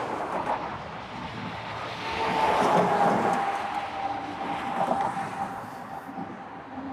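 Motorway traffic passing on the bridge, one vehicle swelling loudest about two to three seconds in, with a steady whine running on after it.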